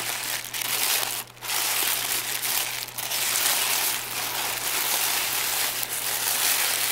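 Thin tissue paper crinkling and rustling as hands pull and crumple it open, with a brief pause about a second in.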